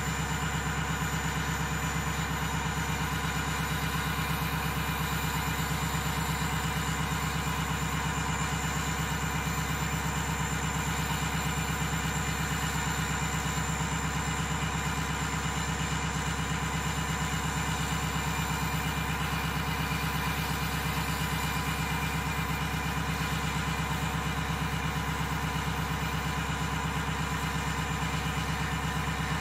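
Ford 6.0 Powerstroke turbodiesel V8 idling steadily at the exhaust tip, warming up after a cold start.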